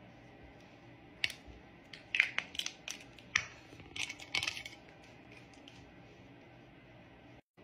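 A quick run of sharp clicks and taps of small plastic makeup containers and caps being handled and set down on a vanity counter, clustered over a few seconds about a second in.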